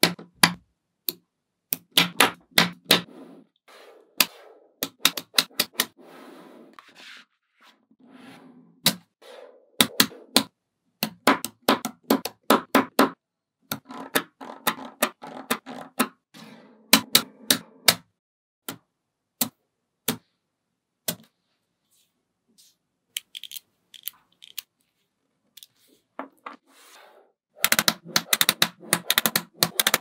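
Small neodymium magnetic balls clicking and snapping together as they are placed one by one, in quick runs of sharp clicks with short pauses between. The clicking thins out to a few isolated clicks a little past the middle, then picks up again near the end.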